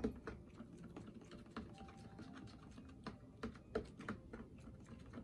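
A spoon stirring a glue-and-water pouring medium in a plastic cup, with irregular clicks and scrapes against the cup's sides. A few louder knocks come about three to four seconds in.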